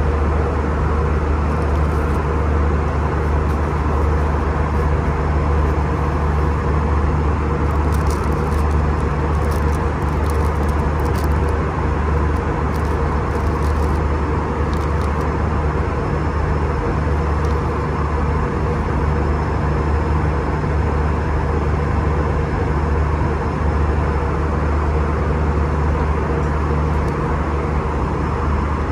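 Steady, loud airliner cabin noise in flight: an even low rumble of engines and rushing air with no change in pitch.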